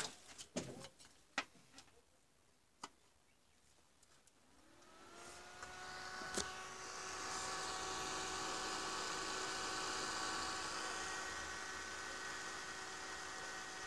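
A few handling clicks and knocks, then about four and a half seconds in the cooling fan of an opened ATX PC power supply starts up. Its whir rises in pitch as it spins up, then runs steadily with a clear tone.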